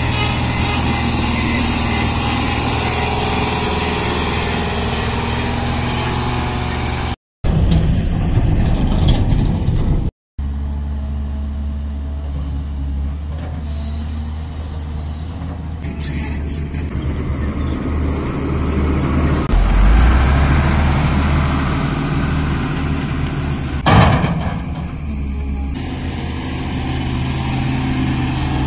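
Heavy diesel excavator engine running steadily under load, with the sound cutting out briefly twice. A sharp knock, like a bucket or metal clank, stands out about 24 seconds in.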